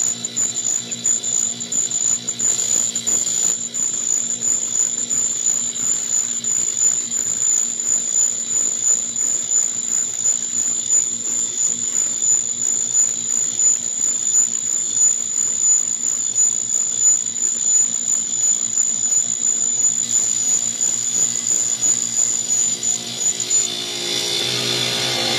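Rotary surface grinder's cup wheel grinding the friction face of a car flywheel wet, resurfacing it: a steady high whine over an uneven grinding noise. The sound shifts in tone near the end.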